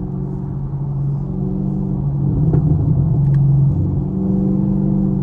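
Chevrolet Camaro SS V8 exhaust heard from inside the car while driving: a steady low drone that grows louder about halfway through. A couple of faint exhaust pops sound near the middle.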